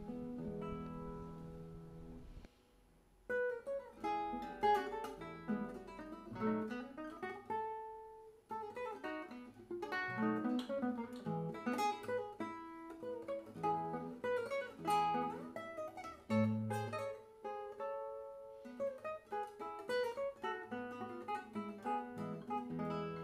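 Solo classical guitar music, picked melody over bass notes, with a short pause about three seconds in before the playing resumes.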